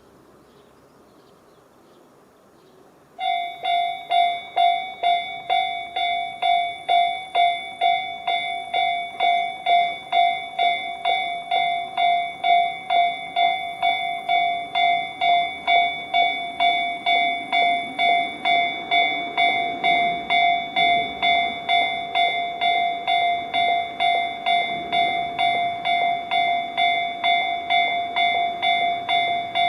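Electronic level-crossing alarm bells of the Tobu Railway 'sound C' type start ringing about three seconds in, a bright repeating ding of about two strikes a second from the sounders on both sides of the crossing. A low rumble builds in the second half as the train approaches.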